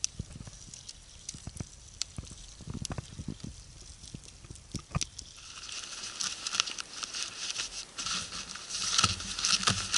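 Campfire crackling with scattered sharp pops and clicks. About five seconds in, this gives way to dense, louder rustling and scraping of a nylon backpack being handled and packed.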